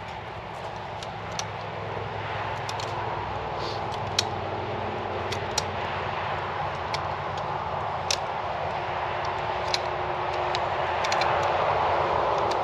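Scattered sharp metallic clicks of a wrench at work, over a steady mechanical running sound that grows louder near the end.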